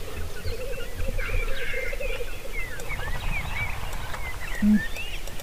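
Black grouse bubbling (rookooing), a low warbling coo that runs for about the first two seconds and then stops, with many short bird chirps and whistles above it throughout.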